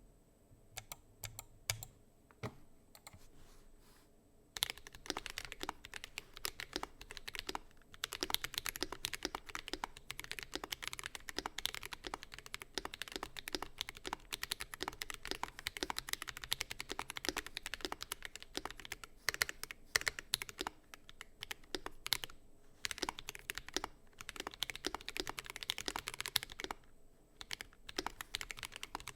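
Ikki68 Aurora mechanical keyboard with lubed Akko Ocean Blue switches on an aluminum plate, case filled with foam, being typed on. A few separate keystrokes at first, then fast continuous typing from about five seconds in, with a short pause near the end before it resumes.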